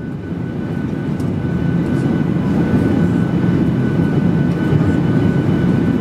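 Steady cabin noise inside a Boeing 737-800 in flight on approach: the rush of air and the drone of its CFM56 jet engines, with a thin steady whine above. It fades up over the first couple of seconds.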